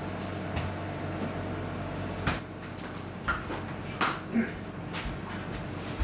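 A steady low hum with four short, light clicks or taps in the second half, about two, three and four seconds in.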